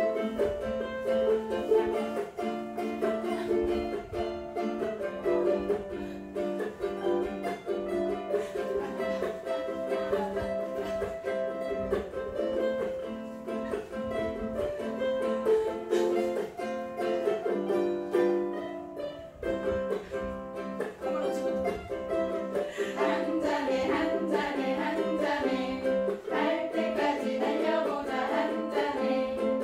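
A small ensemble of four ukuleles strummed together in a bouncy, even rhythm. About three quarters of the way through, voices start singing along.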